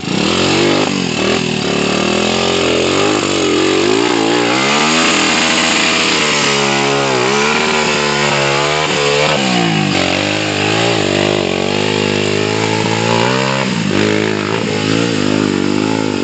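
Homebuilt trail motorcycle engine running under throttle, its pitch rising and falling as the rider works the throttle: it climbs about four seconds in, wavers, drops near the middle and rises again near the end.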